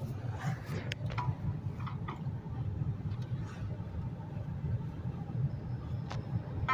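Steady low rumble of a car's engine and road noise heard inside the cabin, with a few faint clicks.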